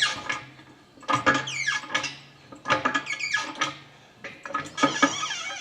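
Engine hoist and hanging engine creaking and squeaking in a few drawn-out strokes about a second apart, with a low steady hum beneath, as the engine is lifted.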